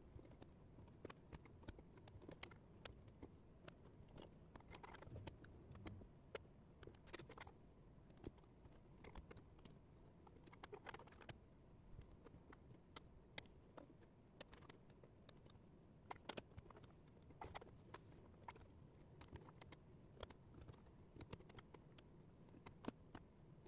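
Faint, irregular clicks and taps of thin laser-cut plywood jigsaw pieces being picked up, slid and set down on a tabletop.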